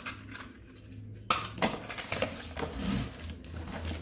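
Packaging being handled and tools unpacked: rustling and clattering that starts suddenly a little over a second in, with several sharp clicks.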